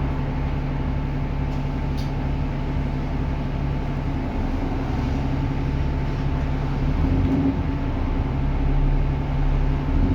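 Diesel bus engine running with a steady whine from the turbocharger. The engine note shifts a couple of times and grows louder near the end as the bus pulls harder.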